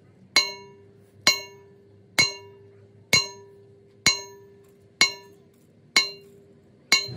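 Hammer blows on a steel part at a steady pace, about one a second, eight in all, each leaving a metallic ring that fades before the next blow.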